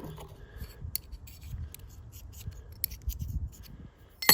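Small metal clicks and light scraping as the steel blade of Felco No. 2 pruning shears is fitted back onto the handle, with a louder clack near the end.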